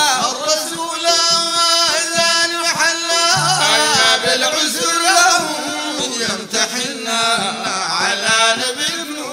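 Male voice singing a Sudanese madeeh, a praise song for the Prophet, in long wavering melismatic lines, with music behind it and a low held note about three and a half seconds in.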